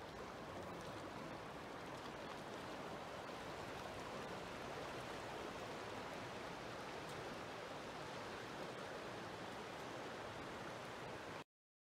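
Steady rush of a fast-flowing river running past the bank, which cuts off suddenly near the end.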